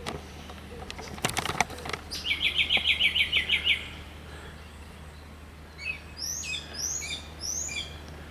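Small songbirds singing: a loud, fast trill of about ten notes, followed a couple of seconds later by three quick, falling whistled phrases. A few sharp clicks come just before the trill.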